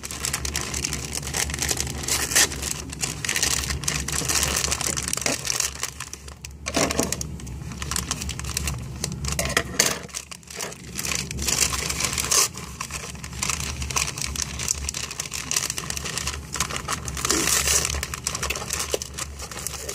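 Wrapping paper being unwrapped by hand, crinkling and rustling on and off, with some tearing.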